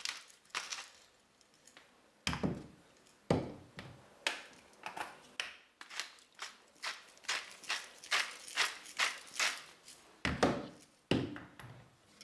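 Salt and pepper being ground over a bowl of beaten eggs: a run of short crackling grinder twists, a few widely spaced at first, then about three a second through the middle.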